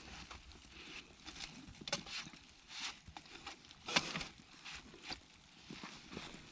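Footsteps crunching in fresh, packable snow: soft, irregular crunches roughly every half second to a second, with one sharper crunch about four seconds in.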